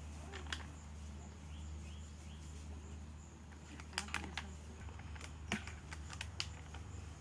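Scattered small plastic clicks and taps as thin plastic cups and a plastic squeeze bottle are handled, over a steady low hum.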